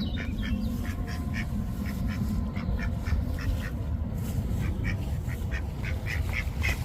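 Several ducks quacking, short calls repeated over and over that come thicker and louder near the end, over a steady low rumble.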